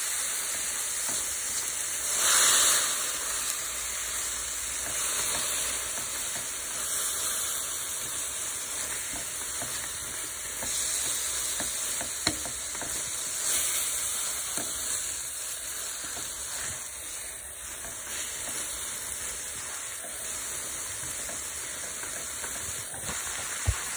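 Kelp noodles sizzling in a hot pan as they are stir-fried with a plastic spoon, with a tablespoon of water just added. The sizzle swells louder about two seconds in, and a few light knocks of the spoon against the pan come through.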